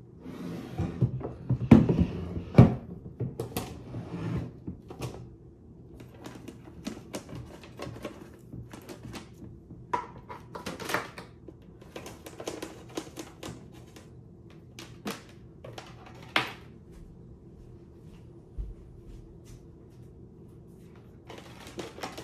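Knocks and clunks of a Symphonic portable turntable's detachable speaker cases being set down on a wooden table and handled, loudest about two seconds in. Lighter clicks and rattles follow as the speaker cables are worked into their jacks.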